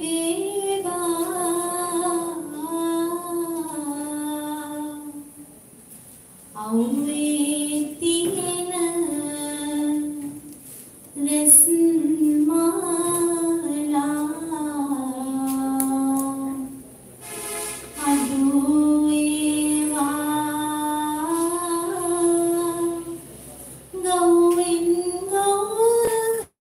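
A single voice singing a slow song unaccompanied, in long held phrases with short pauses for breath between them, over a steady high hiss.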